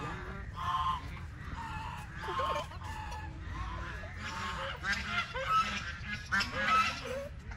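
Domestic geese honking repeatedly, short calls one after another that come thicker and louder in the second half, over a steady low rumble.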